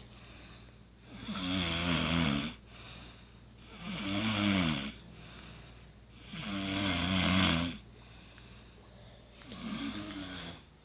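A sleeping person snoring: four long snores with a wobbling pitch, coming about every two and a half to three seconds.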